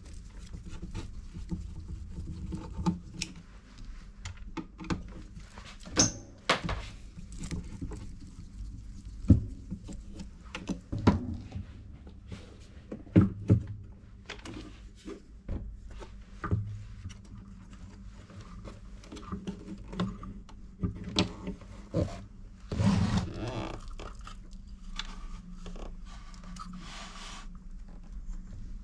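Scattered clicks, taps and knocks of a screwdriver and hands working on a turntable's metal chassis as its motor is unscrewed and taken out, with a few louder knocks and scrapes as the deck is handled.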